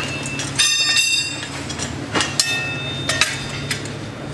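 Metal tyre levers knocking and clinking against a motorcycle's spoked wheel rim as a tyre is worked on a tyre-changing stand, with a ringing metallic clank about a second in and a few sharper knocks after it. A steady low hum runs underneath.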